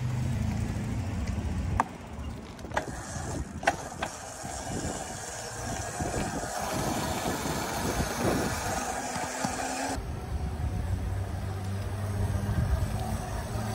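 Razor electric scooter being ridden along a street: motor and tyre rumble with wind on the microphone, in short clips cut together about two and ten seconds in.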